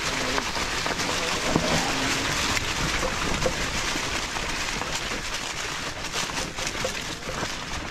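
Fat tires of an electric mountain bike rolling over a trail covered in dry fallen leaves: a steady rustle with many small crackles, mixed with wind noise on the microphone.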